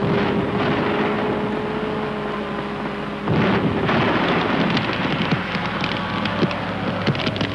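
Roar of large burning buildings, with a louder rumbling surge about three seconds in, then dense crackling and popping that grows toward the end.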